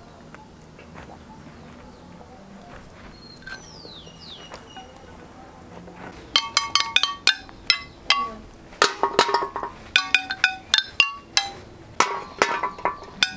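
A child's homemade toy marimba, flat scrap pieces laid on the ground, struck with sticks from about six seconds in: quick, irregular taps, each a bright clinking note with a short ring. Before that, quiet background with a descending whistled call, twice.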